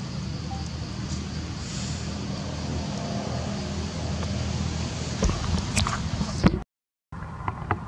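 Steady low outdoor rumble with a few sharp clicks in the second half, broken by a brief cut to dead silence about two-thirds of the way through.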